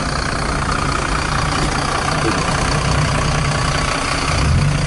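Lada 2112 16-valve four-cylinder engine running steadily in a VAZ 2103 while driving, heard from inside the cabin with road noise. The engine note rises slightly near the end.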